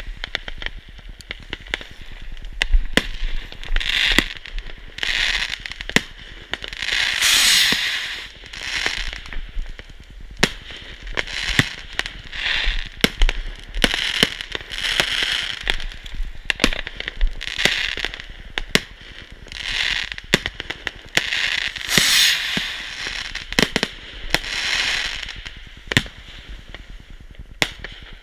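Fireworks going off one after another: a string of sharp bangs mixed with hissing, crackling bursts that last about a second each.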